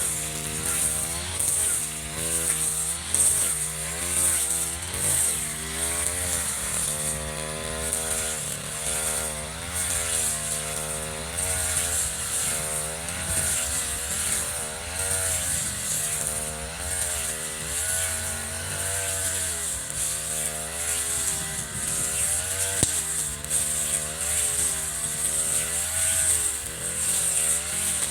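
Echo RM435 brush cutter's two-stroke engine running, its pitch repeatedly rising and falling as the throttle is opened and eased off.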